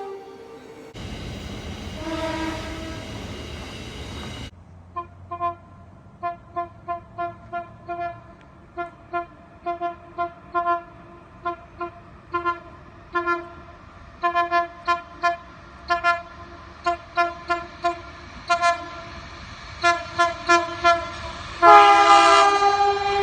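Train horn sounded in a long, uneven run of short toots, about two a second, after a brief stretch of rumble with a faint horn under it. Near the end comes a louder, long blast.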